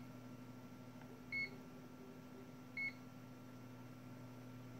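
Vici VC837 digital multimeter's buzzer giving two short, high beeps about a second and a half apart, over a steady low hum.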